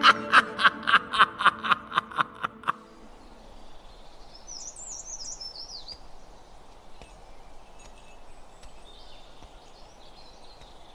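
A short musical phrase of rapidly repeated notes, about five a second, fades out within the first three seconds. Then comes a quiet outdoor ambience with small birds chirping now and then.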